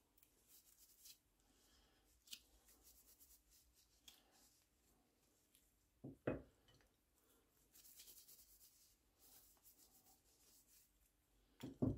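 Faint rubbing of a cloth wiping Danish oil onto wooden chisel and gouge handles, in a few short stretches. Two louder knocks, about six seconds in and near the end, as the tools are put down on the bench.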